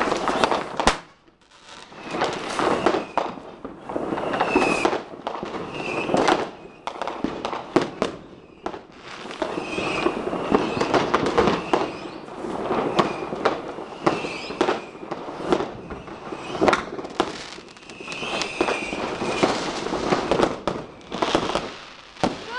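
Fireworks going off all around: a dense, irregular barrage of firecracker bangs and crackling rocket bursts, with short whistles now and then and a brief lull about a second in.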